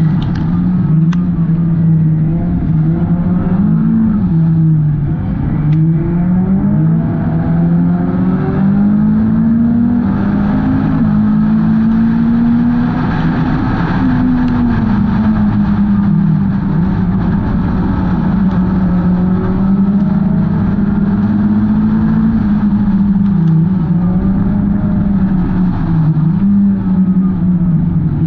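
Hornet-class four-cylinder race car engine running hard, its pitch rising and falling every few seconds as it goes on and off the throttle.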